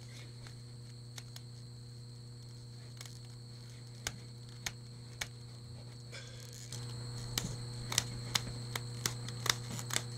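Heavy Phifertex Plus sling fabric being dragged through a chair's sling rail channel with vise grips: scattered sharp ticks and clicks as the weave slides and catches in the channel, coming more often after about seven seconds. Under it runs a steady low hum with a thin high whine.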